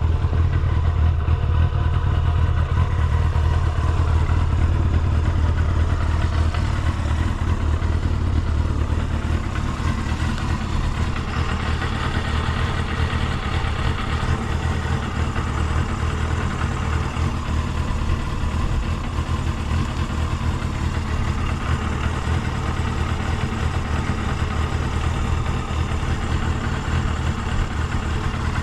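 Kawasaki Balius II's 250 cc four-cylinder engine idling steadily, a little quieter after about eight seconds, with no unusual noises.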